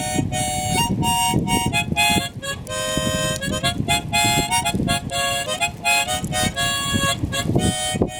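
Background music: a melody of held notes that step from one pitch to the next, over a dense rhythmic accompaniment.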